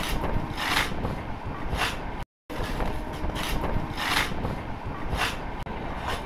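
Passenger train running noise: a steady low rumble with rushes of hiss roughly once a second, cutting out briefly a little over two seconds in.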